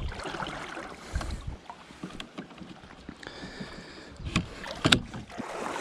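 Canoe under way on a creek: water and wind noise around the hull, with a few sharp knocks, most of them in the second half.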